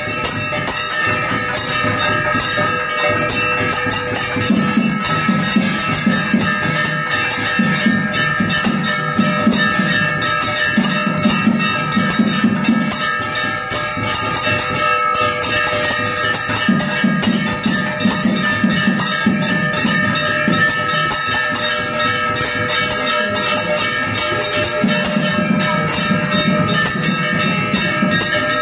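Temple bells rung rapidly and without pause during an arti, with many ringing tones layered over dense fast strikes. Beneath them a low pulsing sound swells and fades in stretches of a second or two.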